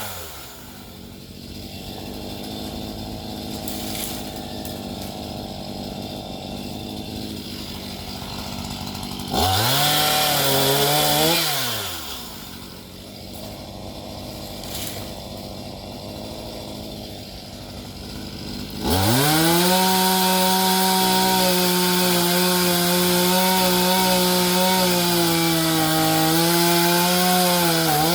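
Chainsaw engine idling, revved up briefly about a third of the way in, then revved up again and held at high speed for most of the last nine seconds before dropping back at the end.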